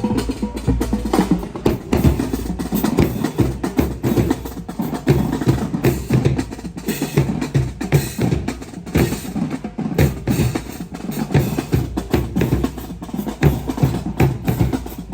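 Drum ensemble playing a fast, dense beat, with rapid sharp strikes over deep bass drum hits.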